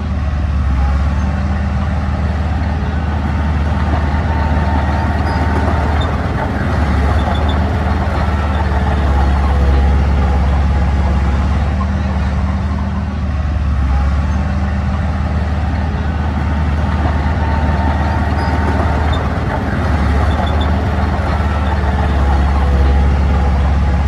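Diesel engine of an earthmoving machine running steadily with a deep hum, its note shifting slightly a couple of times.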